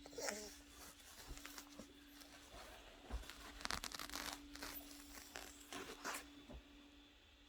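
Faint, irregular scratchy rustling and crinkling noises, a series of short scuffs, over a steady low hum.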